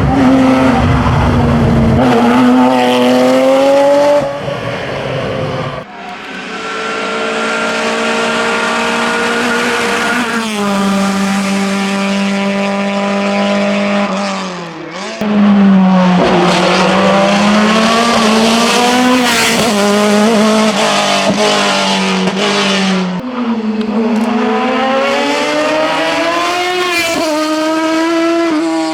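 Hillclimb race car engine at high revs, its pitch climbing and then dropping sharply again and again as it shifts gears and lifts off for corners. The sound dips briefly twice, about a third and half of the way in.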